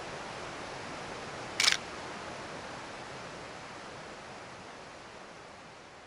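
A film camera's shutter fires once, a short sharp click about one and a half seconds in, over the steady rush of the creek, which slowly fades away near the end.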